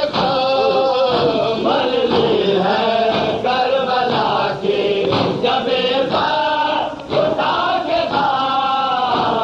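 Male voices chanting a noha, a Shia lament in Urdu, sung together in chorus with long held, wavering notes.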